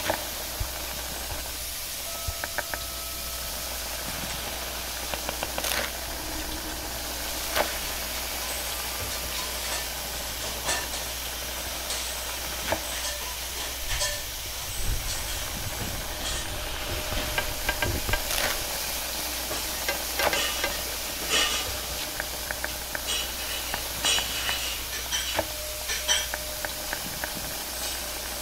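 Noodles stir-fried in a wok over a high gas flame: a steady hiss of frying, with frequent sharp clanks and scrapes of a metal ladle and utensil against the wok.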